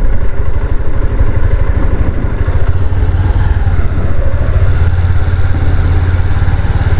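A vehicle engine running steadily with a loud low rumble.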